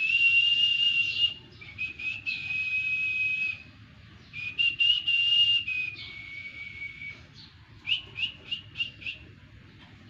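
A person whistling to a pet budgerigar to coax it to whistle back: four long, steady whistled notes, then a quick run of about six short notes near the end.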